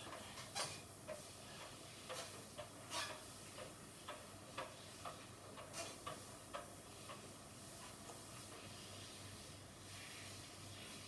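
Electrolux washing machine running ahead of its spin, a steady low hum with irregular light clicks, one or two a second, that thin out after about seven seconds.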